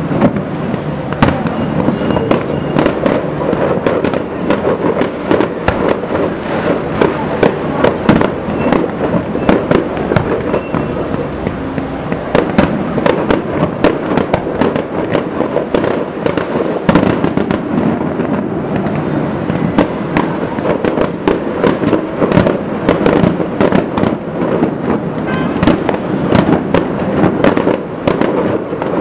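Fireworks display: aerial shells bursting in a dense, unbroken string of bangs and cracks, several a second.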